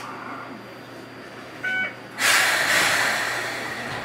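Enoden 500-type electric train at a standstill: a short electronic beep, then a loud hiss of released compressed air that fades over about two seconds.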